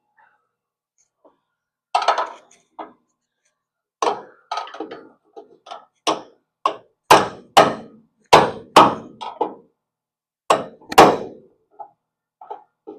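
Hammer blows tapping the steel front torque box into place in the car's body, about fifteen sharp strikes at an uneven pace. They are sparse at first, then come faster and harder through the middle, before a few light taps near the end.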